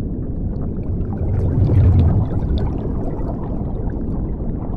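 Underwater bubbling and rushing water sound effect, swelling about two seconds in.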